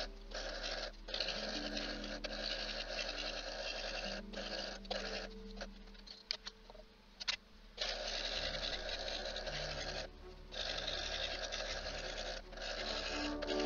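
Scroll saw with a fine reverse-tooth blade cutting African padauk: a fast, rasping buzz that stops short and starts again several times, with the longest break a little after the middle. Soft held musical notes play underneath.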